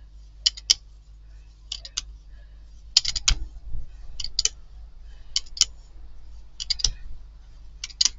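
Hand brayer rolled back and forth over paper on a gel printing plate, giving a pair of sharp clicks about every second and a quarter as the roller is pushed and pulled.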